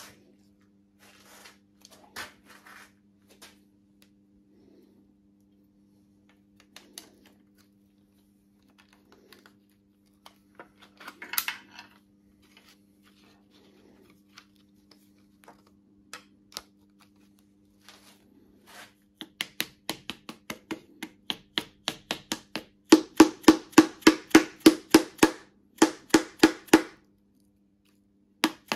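Mallet tapping a piston down through a homemade band ring compressor into the engine block's cylinder bore. It starts as scattered clicks and light taps, then becomes a fast run of sharp taps, about five a second, loudest in the last few seconds before a short pause.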